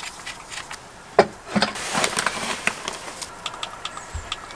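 Handling noises in a small room: scattered clicks and light knocks, with a sharper knock about a second in and a brief rustle around two seconds in.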